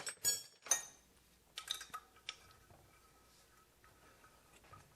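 Sharp metallic clinks and clicks of the broken exhaust filter being taken off a Gast vacuum pump: a cluster of clinks in the first two seconds or so, then only faint ticks of handling.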